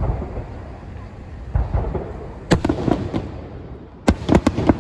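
Aerial fireworks shells bursting: a deep boom about a second and a half in, then sharp cracking bangs, with a quick cluster of them near the end.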